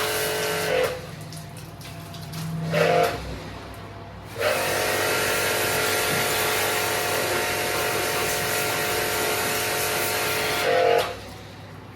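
A loud machine hiss with several steady tones. It cuts off about a second in, starts again sharply after about four and a half seconds, and stops near the end.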